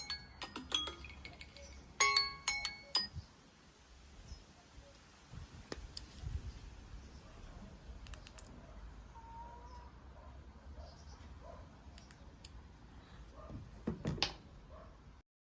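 Smartphone alarm tone: two quick runs of bright chime-like notes in the first three seconds, then it stops. After that only a low background hum with a few faint clicks and one louder knock near the end.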